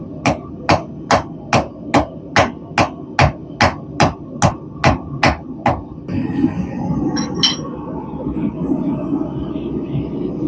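Blacksmith's hammer striking hot steel on an anvil, a steady rhythm of about fourteen blows, roughly two and a half a second, tapering the thin section of a small forged hook. The hammering stops about six seconds in, leaving a steady low rumble with a couple of light metallic clinks.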